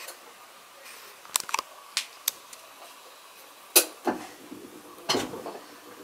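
Hitachi BeatWash top-loading washing machine giving irregular sharp clicks and clunks: a quick cluster about a second in, single clicks after it, the loudest knock a little past the middle and a ringing clatter near the end, over a faint hum. The clicking is one of the abnormal noises of its failing clutch.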